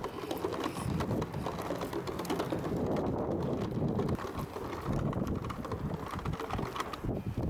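Wind buffeting the microphone, with footsteps and the wheels of a pulled cooler rattling and clattering over the wooden planks of a pier.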